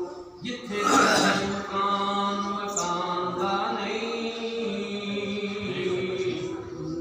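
An elderly man chanting a naat, an unaccompanied devotional poem, in long held notes with a short pause near the start. A loud breathy sound comes about a second in.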